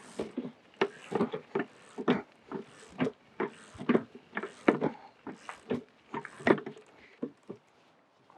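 A person's voice in short breathy bursts without words, about two a second.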